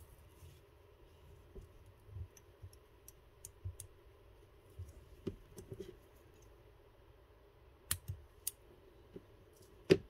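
Scattered small clicks and taps of fly-tying tools and thread being handled at the vise, with a few soft thumps and one sharper click near the end.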